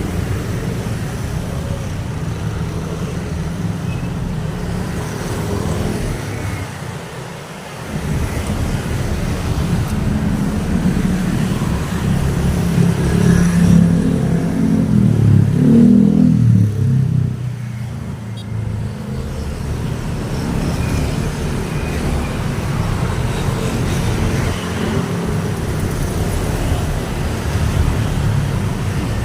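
Road traffic: a steady stream of vehicles passing. It swells to a louder pass between about 12 and 17 seconds in, where an engine's pitch rises and then falls as it goes by.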